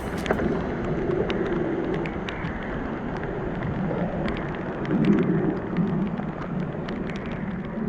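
Rain falling steadily, with many scattered sharp ticks of drops over a dense low rush of noise.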